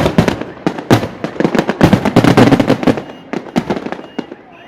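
Aerial fireworks shells bursting in quick succession, a dense run of bangs and crackling that thins out and quietens near the end.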